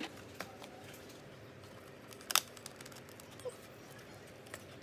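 Dry birch bark being handled and bent into place: a few scattered light crackles and clicks, with one sharper click about two seconds in.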